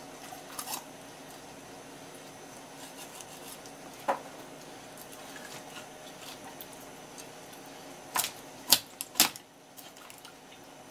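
A kitchen knife clicking and knocking against the bones of a red sea bream's head and the wooden cutting board as the head is cut free. The clicks are scattered early on, and three louder ones come close together near the end, over a steady low hum.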